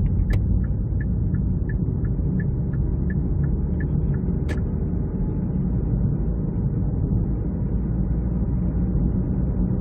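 Steady low rumble of road and drivetrain noise inside the cabin of a 2017 Kia Niro being driven. A light ticking runs at about three a second for the first four seconds, and there is a single click about halfway through.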